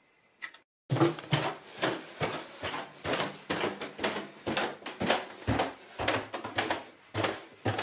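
Quick footsteps on an indoor floor, about three a second, starting about a second in. Rustling and handling noise sit close to the microphone as the walker carries a handheld camera.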